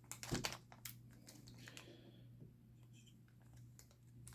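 Faint crinkling and scattered clicks of a small plastic package of parts being handled and worked open, most of it in the first two seconds, over a steady low electrical hum.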